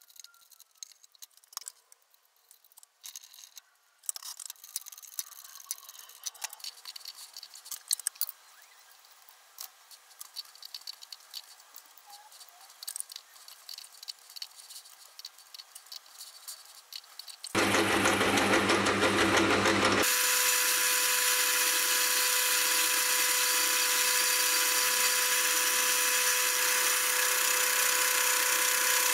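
Light clicks and taps as a four-jaw lathe chuck is adjusted with its key to centre a stainless steel shaft. About two-thirds of the way through, the metal lathe starts and runs loud and steady, turning down the end of the stainless shaft, with a steady tone over a hiss.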